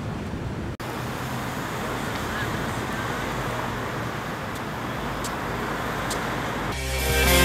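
Steady outdoor street ambience with distant road traffic, an even hiss-like noise. Near the end, rock music with guitar comes in and grows louder.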